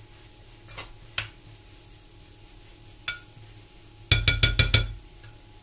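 A cooking utensil clinking against a pan: a few single light clinks, then about six quick ringing taps near the end, as if knocking food off the utensil on the pan's rim.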